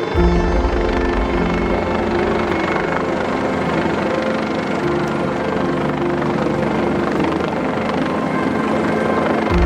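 Mountain rescue helicopter flying past, its rotor and turbine running steadily. The deep low rumble cuts in and out abruptly a few times.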